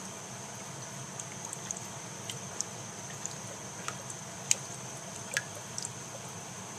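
Water draining out of a boiler through a hose, with a steady rush and irregular sharp drips, the strongest about four and a half seconds in. The boiler is being drained to drop its water level and trip the low-water cutoff.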